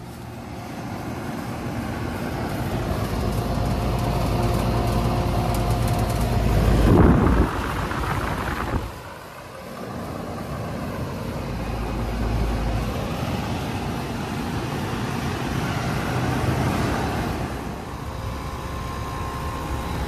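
Residential central air conditioner outdoor condensing units running: a steady compressor hum under the rush of the condenser fan. A louder short whooshing surge comes about seven seconds in.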